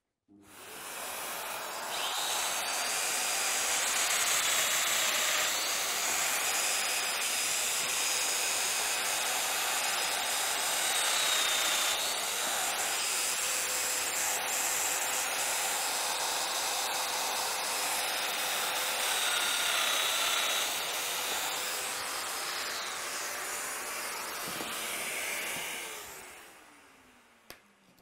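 Festool Domino DF 500 jointer routing dowel mortises into a panel edge, together with the dust extractor that draws through its hose. The motor's high whine comes and goes several times between cuts. The run-down sound falls in pitch and dies away near the end.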